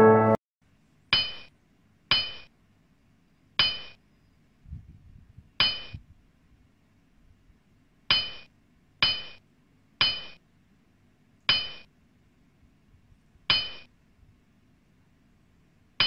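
Phone chat message notification chimes: about ten short, bright dings at uneven intervals, each fading quickly, each marking an incoming chat message.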